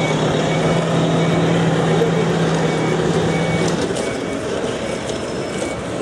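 Heavy forklift running and backing up, its reversing alarm beeping at a steady repeat over the engine. The engine's low hum drops away about two-thirds through while the beeping goes on.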